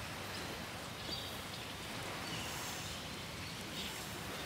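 Quiet outdoor ambience: a steady low hiss with a few faint, brief high sounds scattered through it.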